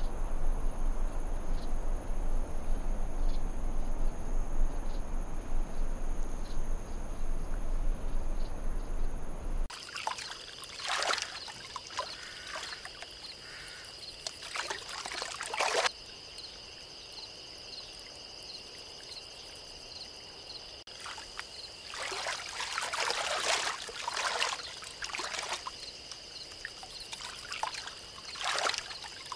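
Outdoor water ambience. For about the first ten seconds a steady rushing noise runs under a high, even whine. After an abrupt change it turns quieter, with a steady high drone and several short bouts of water splashing and dribbling.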